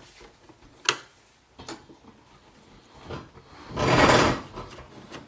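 Handling of the plastic parts of an inkjet printer while its print head is refitted: two light clicks, then a short scraping rustle about four seconds in.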